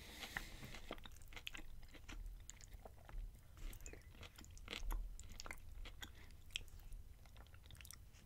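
Close-up chewing of a mouthful of Chipotle beef power bowl: soft, wet mouth clicks and smacks at irregular intervals. A metal fork scoops through the food in the bowl.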